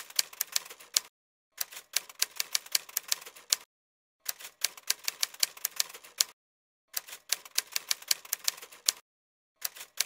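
Typewriter keystroke sound effect: rapid clacking keys in runs of about two seconds, separated by short silences, typing out text a line at a time.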